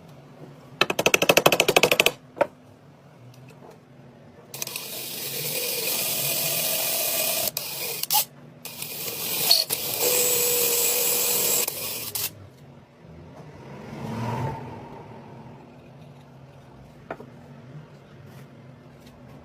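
Workshop tool noise: about a second of fast, evenly repeated strokes, then a loud, steady high hiss for about eight seconds, broken once by a short gap.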